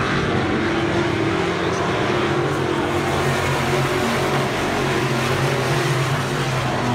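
Several Midwest Modified dirt-track race cars running at speed around a dirt oval, their engines blending into one loud, steady sound that wavers in pitch as the cars pass.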